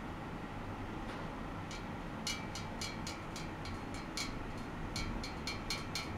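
A run of light, sharp metallic ticks, about four a second, each with a short high ring. They begin about two seconds in, pause briefly a little past four seconds, then resume. Under them is a steady low hum and hiss from the bench equipment.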